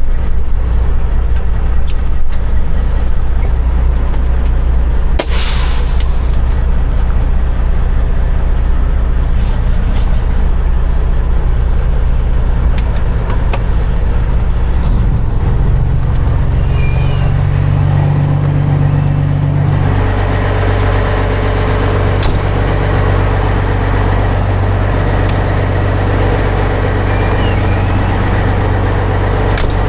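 Kenworth semi truck's diesel engine running steadily, with a short hiss of air about five seconds in. The engine note shifts pitch around fifteen seconds in and again around twenty.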